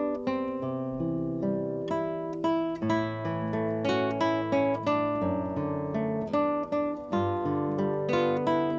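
Background music: solo acoustic guitar playing a run of plucked notes and chords at an even pace.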